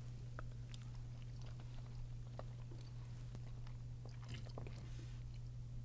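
Two people chewing bites of smoked hard-boiled egg: faint, soft, scattered mouth clicks over a steady low hum.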